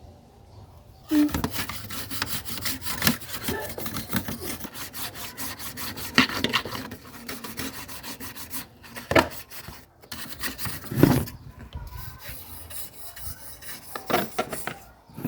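Rapid hand rubbing or scrubbing strokes against a hard surface, starting about a second in, with a few louder knocks among them and short pauses.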